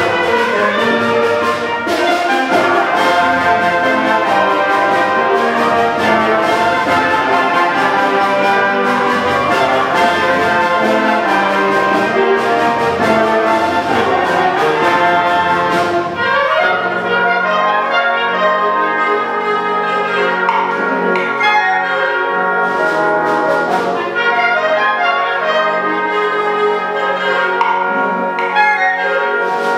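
High school band playing a brass-led piece. About halfway through, the full ensemble passage gives way to a thinner section over held low notes.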